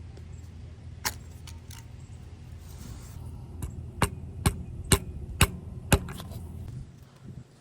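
A few light metal clinks, then six sharp metal taps about half a second apart: a new variable valve timing solenoid being tapped into its bore with a 21mm socket to seat and seal it. A low steady hum underneath fades out near the end.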